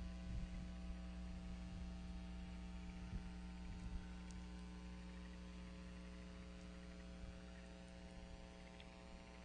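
Steady electrical mains hum from the nest-cam's audio feed, made of several even tones, with a few faint low bumps in the first few seconds.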